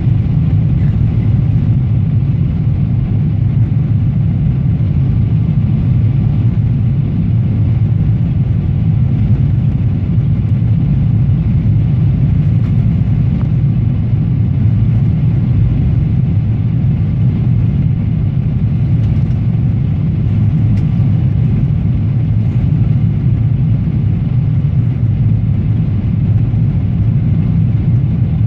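Steady low rumble inside the cabin of a Boeing 777-300ER in flight on approach: engine and airflow noise, with a faint steady whine above the rumble.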